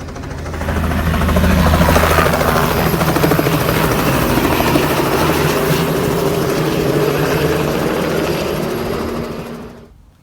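Helicopter running close by, its rotor blades making a rapid, steady chop. It swells about a second in and fades out near the end.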